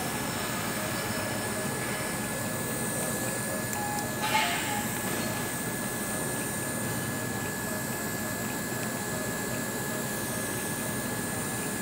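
Steady hum of a repair shop with a thin, steady high whine over it. About four seconds in comes a brief scrape of metal as pliers work the brake pad's clip spring on the rear caliper.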